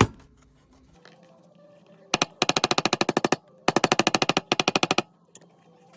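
Cobra Class 26 leather sewing machine stitching in two short runs, a fast even clatter of about fifteen stitches a second with a brief stop between runs.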